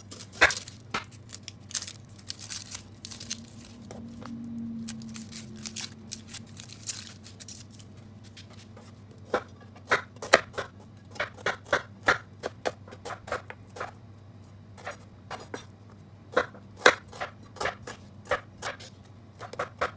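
Kitchen knife trimming, then slicing and dicing a red onion, the blade tapping on a plastic cutting board: scattered single strokes at first, then more frequent chops through the second half.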